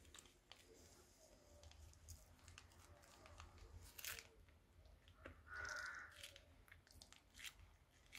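Faint crinkling and crackling of a plastic piping bag being squeezed as thick slime base is piped out, with scattered small clicks, a sharper crackle about four seconds in and a short squish a little after.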